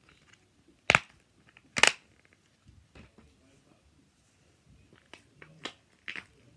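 Fidget toys handled close to the microphone: two loud sharp snaps about one and two seconds in, then a few lighter clicks near the end.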